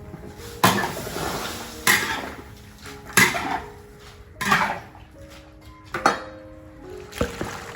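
Metal utensil clanking against a cooking pot six times, roughly every second and a quarter, each clank followed by a short scraping noise.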